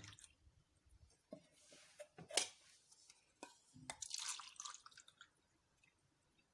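Faint liquid sounds of juice pouring and dripping into small cups, with a few light clicks and taps as the cups are handled.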